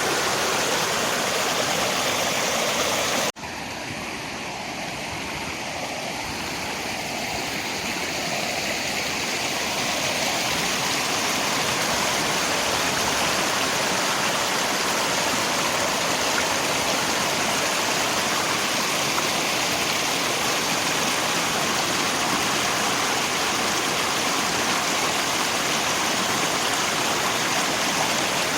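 River water rushing steadily, with rain, as an even wash of noise. About three seconds in it cuts out for an instant, then comes back quieter and swells to full level over several seconds, like a loop splice fading back in.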